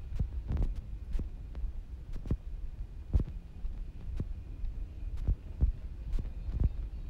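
Walking footsteps picked up by a body-held camera, heard as dull thumps about twice a second over a steady low rumble, with a faint steady tone behind.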